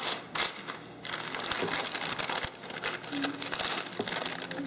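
White paper bag rustling and crinkling as it is handled and folded by hand, in irregular bursts.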